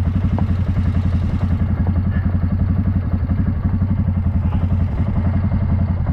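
ATV engine running steadily at low, even revs, with a fast regular pulsing and no revving up or down.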